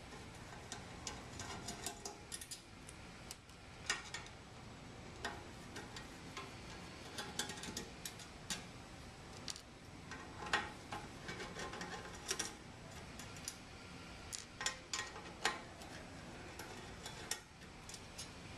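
Screws being turned out of a stainless-steel cover plate with a hand screwdriver: light, irregular metallic clicks and ticks, with small screws set down on the tabletop now and then.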